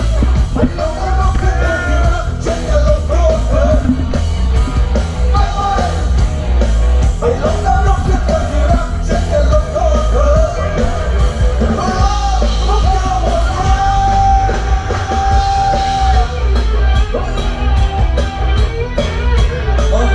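Loud rock-style music with a shouting, singing vocal over heavy bass and a steady drum beat, the singer holding one long note past the middle.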